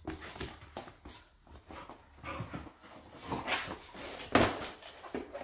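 Lagotto Romagnolo puppy romping wildly, making uneven scrambling and dog noises, with a sharp knock about four seconds in that is the loudest sound.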